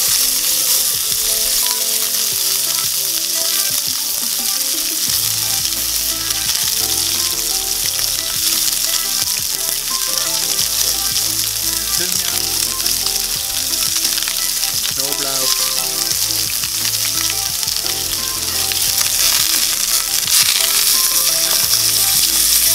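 Beef steak searing in hot olive oil in a cast-iron pan: a loud, steady sizzle that grows a little louder near the end.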